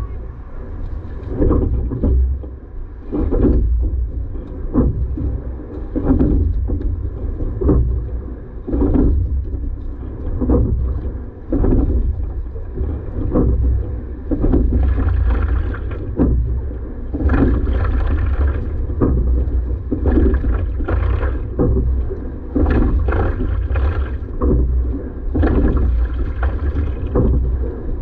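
Rowing boat under way at full pressure: oars working in a steady stroke-by-stroke rhythm, each stroke a swish of water, over a low rumble of wind on the microphone.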